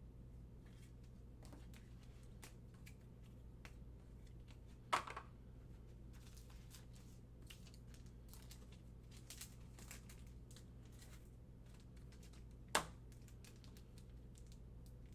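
Trading cards and foil pack wrappers being handled: faint scattered crinkles and small clicks, with two sharper clicks about five seconds in and near the end.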